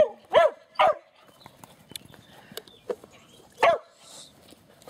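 A dog barking: a quick run of short barks in the first second, then one more bark nearly four seconds in.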